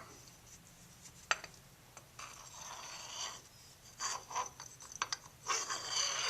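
Hands working parts in a small room: a sharp click a little over a second in, then several stretches of rubbing and scraping.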